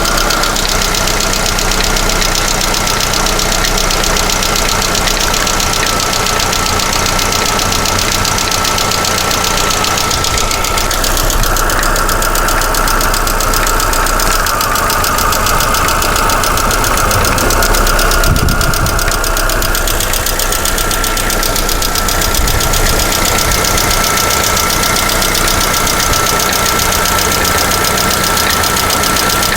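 Lada Vesta 1.6 engine running at idle with a rapid, steady tapping from the valvetrain, with a steady whine beneath it. The tapping is the knock of worn hydraulic valve lifters.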